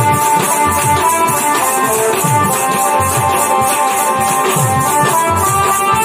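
Traditional Indian folk music with drums and a rattling shaker keeping a steady beat under held melody notes.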